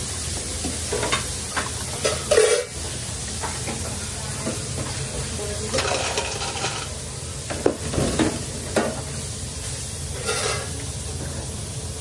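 Deep-fryer oil sizzling steadily, broken by metal clanks and rattles of wire fry baskets being handled, including fries being tipped from a basket into a stainless steel bowl about halfway through.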